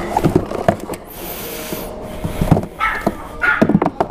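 A dog barking in short repeated barks, with a cluster of them about three seconds in. Between the barks, handling knocks and the rustle of a cardboard box and wire being packed into a scooter's plastic storage compartment.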